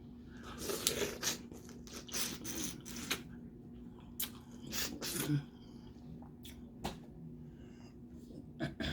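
Close-miked eating of crawfish and snow crab legs: irregular cracks, snaps and rustling as shells are broken and picked apart, busiest in the first five seconds, then a few single sharp clicks.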